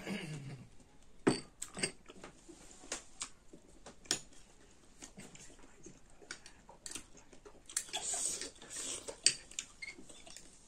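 A metal spoon clinking and scraping against a small glass bowl as mulberries are stirred and scooped, with a few sharp clinks and softer scraping between them, along with close-up eating and chewing sounds.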